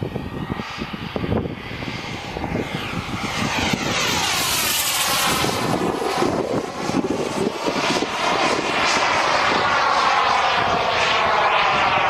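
Turbine engine of a Turbinator RC sport jet in flight: a steady jet rush with a shifting whine. It grows louder about four seconds in and stays loud as the jet comes close.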